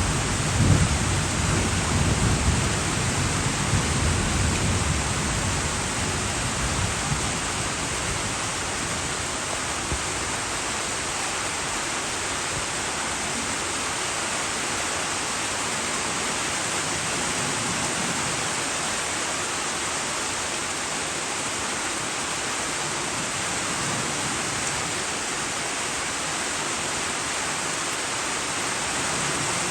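Steady rain falling, an even hiss throughout. A low thunder rumble dies away over the first few seconds.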